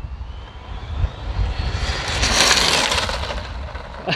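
Traxxas XO-1 RC car at full throttle on a speed run, its brushless electric motor whining higher as it accelerates. A loud rush of motor and tyre noise peaks about halfway through as the car passes at about 90 mph, then fades. Low wind rumble on the microphone.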